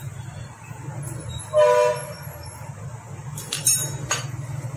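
A short, loud horn-like honk of under half a second about one and a half seconds in, then a few sharp metallic clinks near the end as tools work on the scooter engine, over a steady low hum.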